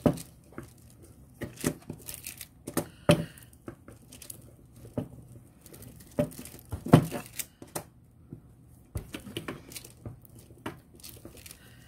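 Crinkling and tearing of wrapping being handled as a block of polymer clay is opened and worked, in irregular sharp crackles with short pauses.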